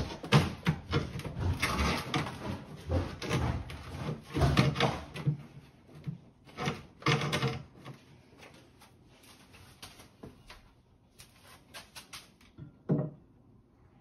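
A wooden cupboard carcass being shifted and knocked into place on the floor as it is levelled up: a run of knocks, clunks and scrapes for the first several seconds, then scattered light taps and one sharper knock near the end.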